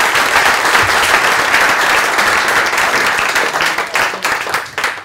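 Audience applauding: a dense wash of many hands clapping that thins into a few scattered claps near the end.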